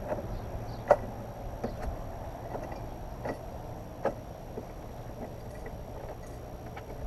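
A few light clicks and taps of hands working bolts and parts at a Honda CTX1300's rear bodywork and saddlebag mount, the sharpest about a second in and two more around three and four seconds in, over a steady low background rumble.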